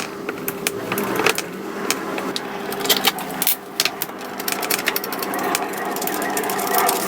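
A small motor running steadily, with many sharp clicks and metallic knocks as the old door lock is taken off.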